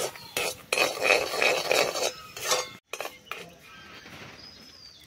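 Perforated metal skimmer stirring and scraping sugar and a little water in a cast-iron kadai, clinking against the pan for about the first three seconds, then going much quieter.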